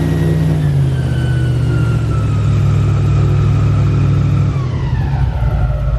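Airboat's engine and propeller running loud, the engine note stepping down about a second in and again near the end as it throttles back.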